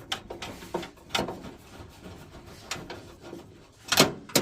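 Scattered clicks, knocks and rubbing of parts and tools being handled during work on a gas boiler's burner and electrodes, with two louder knocks near the end.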